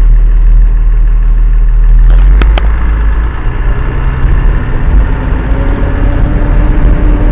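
Tata 2518 tipper truck's diesel engine running under load in second gear, heard from inside the cab as a heavy steady rumble. Its pitch slowly climbs in the second half as the truck gathers speed. Two sharp clicks come about two and a half seconds in.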